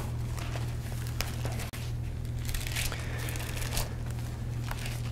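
Bible pages being turned, the paper rustling in short bursts with a few light clicks, over a steady low hum.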